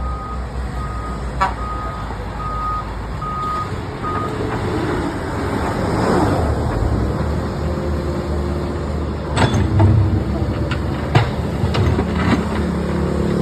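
Backhoe loader's engine running, its reversing alarm sounding a string of evenly spaced beeps for about the first four seconds. After that come several sharp knocks, the loudest a little over nine seconds in.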